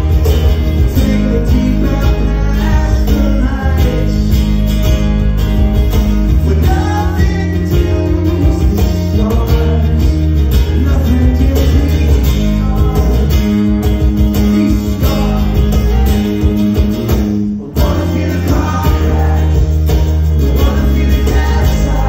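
A male singer sings a song into a microphone, accompanied by his own strummed acoustic guitar, in a live acoustic performance. The music drops out for an instant about three-quarters of the way through.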